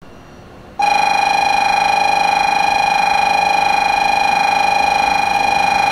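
Station platform's train-approach warning: a loud, steady electronic buzzer tone that starts abruptly about a second in and holds one pitch, with a fast flutter. It signals an arriving Shinkansen train.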